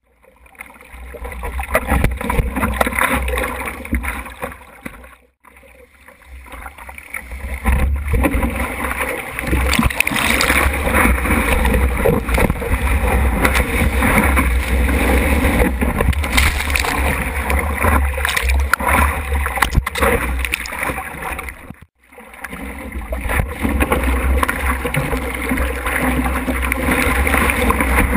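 Surf water rushing and splashing over a surfboard's nose, heard through a GoPro's waterproof housing mounted on it, with a steady low rumble underneath. The sound drops out briefly twice, about five seconds in and again past the twenty-second mark.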